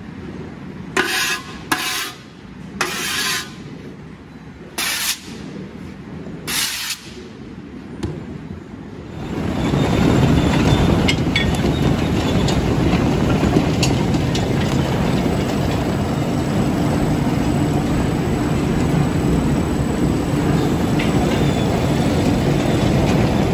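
A shovel scraping across a concrete floor in about five short strokes. About nine seconds in, a potato sorting line starts to be heard, a steady loud mechanical clatter of rollers and conveyors with potatoes tumbling and knocking over them.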